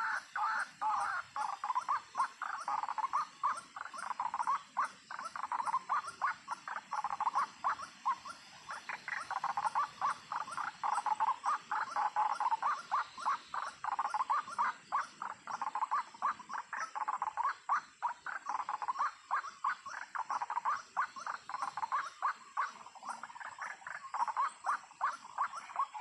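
White-breasted waterhen (ruak-ruak) calls: a fast, unbroken run of repeated croaking notes, several a second, going on without a pause.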